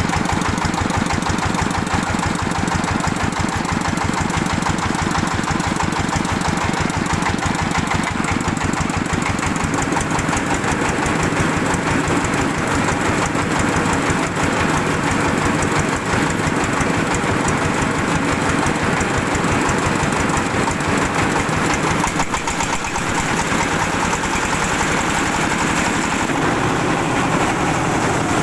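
Single-cylinder diesel engine running steadily with a rapid, even chugging beat, driving a rice milling machine. The sound changes a little about ten seconds in.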